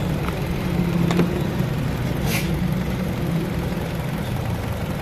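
Car engine idling steadily with a low hum, with a brief hiss about two seconds in.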